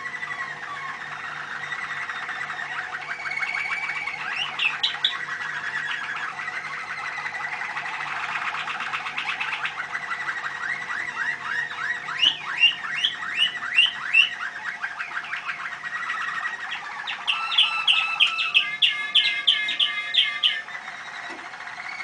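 Caged canaries singing a continuous song of rolling trills and twittering. Runs of loud, sharp repeated notes come about 12 seconds in and again from about 17 to 20 seconds.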